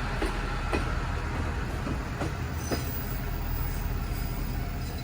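KiHa 40 diesel railcar running at low speed: a steady diesel rumble, with its wheels clicking over rail joints about five times in the first three seconds.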